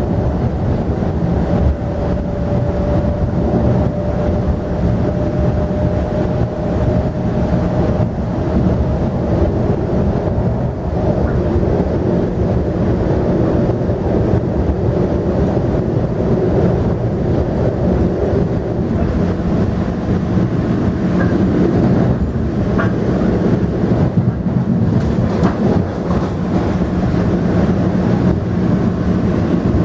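Metro-North M7A electric multiple unit running at speed, heard from inside the car: a steady rumble of wheels on track, with a faint steady whine for the first several seconds and a lower one after that.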